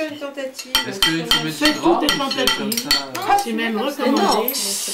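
Cutlery clicking and clinking on plates, and near the end a brief sizzle as a slice of raw meat is laid on the hot stone of a tabletop stone grill.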